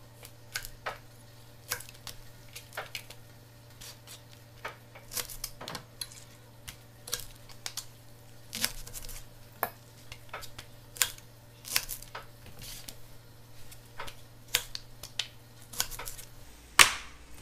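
A kitchen knife cutting Brussels sprouts in half on a cutting board, with the halves dropped into a bowl: irregular sharp taps and knocks, one or two a second.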